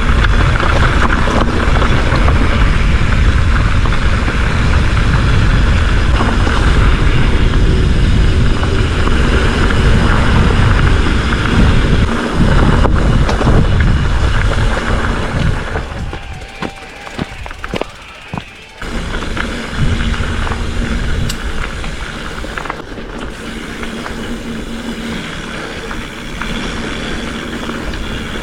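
Wind buffeting the camera microphone and knobby tyres rolling over dirt singletrack as a hardtail mountain bike is ridden. The noise falls away sharply about two-thirds of the way through, then picks up again more softly.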